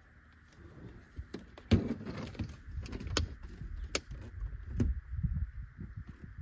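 Handling noise as a portable car-stereo screen and its mount are set in place on a dashboard: several sharp plastic clicks and knocks with rustling and light thumps between them.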